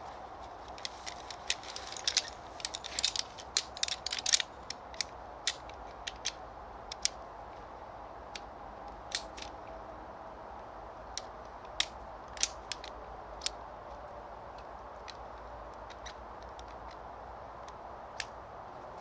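Metal frame poles of an Alite Mantis 2.0 folding camping chair clicking and clacking as they are unfolded and fitted together. A quick run of sharp clicks comes about two to four and a half seconds in, followed by scattered single clicks.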